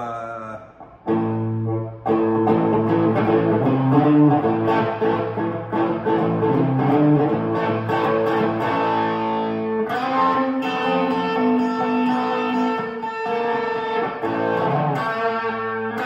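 Semi-hollow-body electric guitar played through a Two-Rock tube amp set for overdrive: a rock riff of picked notes and chords. There is a short break about a second in, then steady playing.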